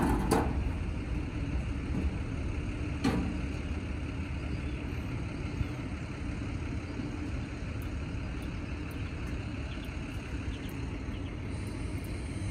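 Steady low hum of motor vehicles running nearby, with a single sharp knock about three seconds in.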